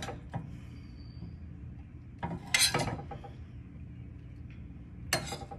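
Stainless steel serving spoon clinking against a small stainless saucepan and a ceramic plate as peas and carrots are dished out. A few scattered clinks, a cluster about two and a half seconds in and another near the end, over a low steady hum.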